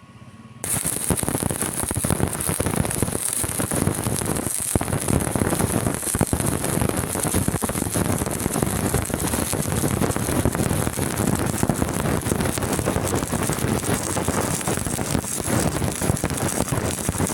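Stick welding arc crackling and sputtering steadily as a weld bead is run. It is struck abruptly under a second in and breaks off sharply at the very end.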